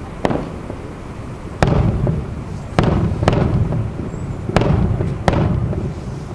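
Fireworks going off: about six sharp bangs at uneven intervals, each trailing off in a low rumble.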